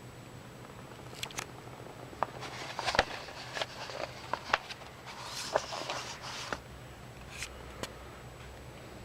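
Paper pages of a manual being handled and leafed through: a few light taps, then a stretch of rustling swishes and clicks in the middle, and a couple of ticks near the end.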